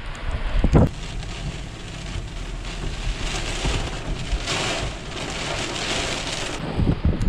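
Thunderstorm wind buffeting the microphone, with a sharp gust under a second in. Then steady heavy rain pelting the car's roof and windshield, heard from inside the cabin, before the wind noise comes back near the end.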